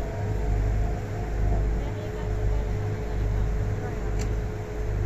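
River cruise boat's engine running as a low, uneven rumble that swells and fades, with a steady hum over it.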